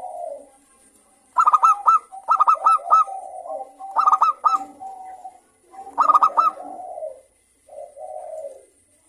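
Local zebra dove (perkutut) singing. Four times it gives a quick run of three or four clear, ringing high notes, each run followed by a lower rolling coo, with short pauses between phrases.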